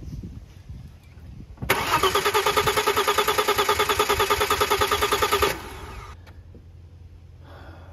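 Audi 2.7 twin-turbo V6 cranked over by its starter motor for about four seconds without firing, in an even pulse of about ten beats a second, then cutting off abruptly. This is compression-test cranking on the third cylinder, which comes up at about 169 psi, right on the money for a healthy cylinder.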